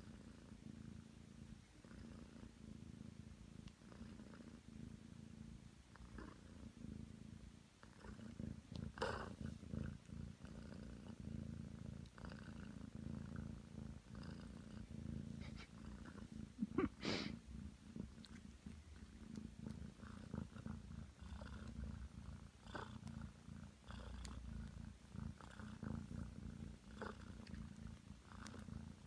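Ragdoll cat purring steadily in a continuous low, pulsing rumble. Two short, sharper noises break in, about nine seconds in and, louder, about seventeen seconds in.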